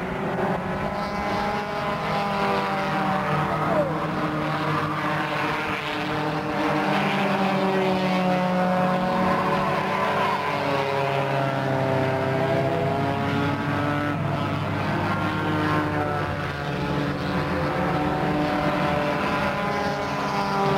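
Four-cylinder stock car engines racing, several engines at high revs at once, their pitches rising and falling as the cars lift and accelerate through the turns.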